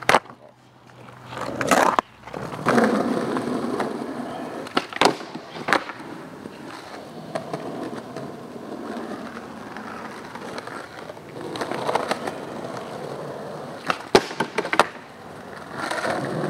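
Skateboard wheels rolling on asphalt, a steady grainy rumble, broken by sharp clacks of the board hitting down: a few in the first two seconds, a cluster around five seconds in, and two more near the end.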